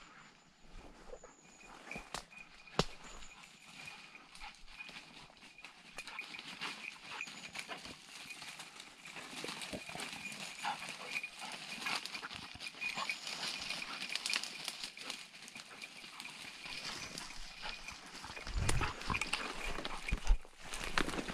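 Walking through woodland undergrowth: irregular footsteps with dry leaves and twigs crackling and brush rustling, with a few heavier thumps near the end.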